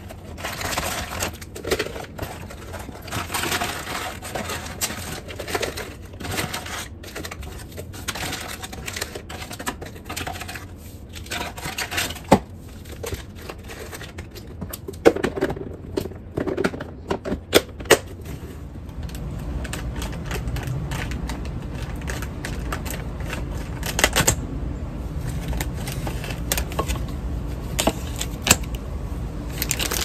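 Cardboard box flaps opened and paper drink-mix stick packets handled and dropped into a plastic container: a dense run of light crinkles, taps and clicks. A little under two-thirds of the way in, a steady low rumble comes in beneath the handling.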